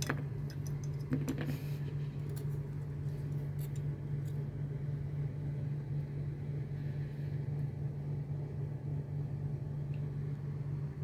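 A steady low hum, with a few light clicks about a second in and scattered faint ticks over the next few seconds.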